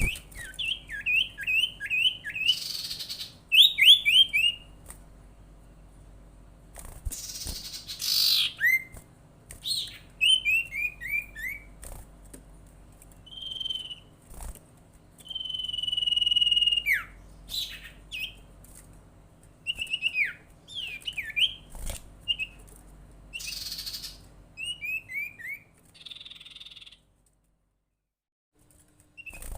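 Sirtu (common iora) calling: quick runs of down-slurred whistled notes, a long drawn-out whistle midway, and several harsh rasping notes. It is a lure call meant to set other sirtu and iora singing.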